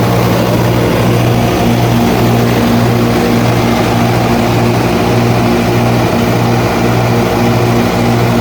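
80 kW Kohler diesel generator set running steadily under its engine's even drone, with a faint regular beat about once a second.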